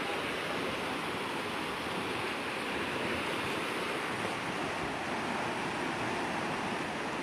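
Swollen river in flood rushing steadily, a constant even roar of fast-moving water.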